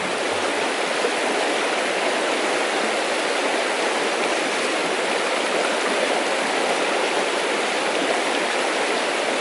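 A small cascading stream running over rocks: a steady, even rush of water.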